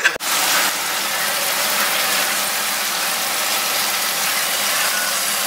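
Steady, even hiss of stovetop cooking from a pot of broccoli on a gas hob, starting abruptly a moment in and holding level throughout.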